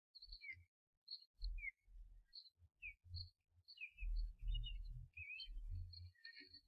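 Osprey calling at the nest: a string of short, high whistled chirps, about two a second, some sliding down in pitch, coming thicker in the second half. A low rumble comes and goes underneath.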